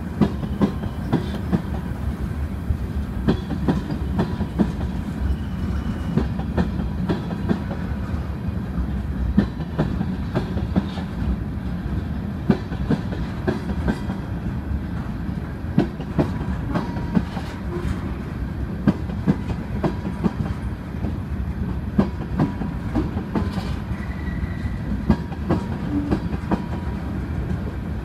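Freight train cars rolling slowly through a grade crossing: a steady rumble of wheels on rail, with sharp clacks about once or twice a second as the wheels cross rail joints.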